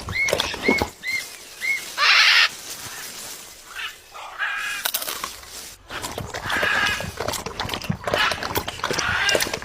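A bird calling: four short arched calls in quick succession in the first two seconds, then further calls later on, amid many short clicks and knocks. A loud half-second burst of noise comes about two seconds in.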